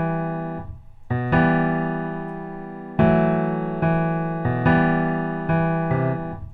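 Piano chords in E minor, played slowly: each chord is struck, left to ring and fades before the next, about five changes in the span.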